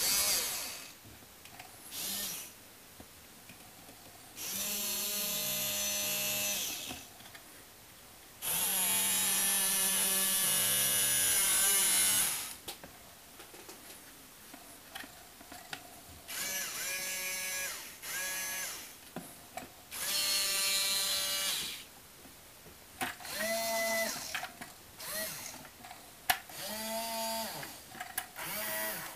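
Small geared DC motors of toy robot arms whining in start-stop bursts as the arm joints and grippers move: two longer runs of a few seconds early on, then a string of short one- to two-second bursts.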